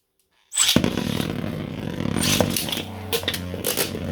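Two 3D-printed Beyblade spinning tops launched together about half a second in, then whirring as they spin in the stadium, with repeated sharp clashes as they hit each other.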